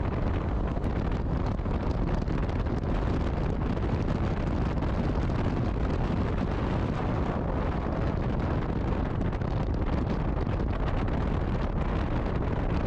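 Steady rush of wind buffeting the microphone on a moving motorcycle, with the bike's running noise blended in beneath it.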